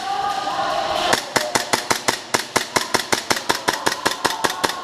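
Airsoft gun firing a steady, rapid string of shots, roughly seven or eight a second, starting about a second in and running for over three seconds.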